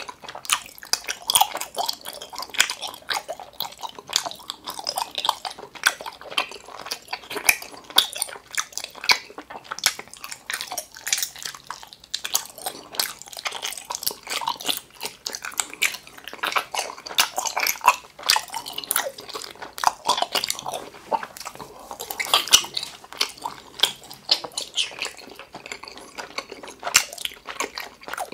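A person chewing a mouthful of gummy jelly candy, with wet, sticky smacks and clicks coming quickly and unevenly.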